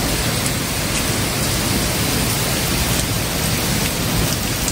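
Heavy rain pouring steadily in a thunderstorm, with a low continuous rumble underneath.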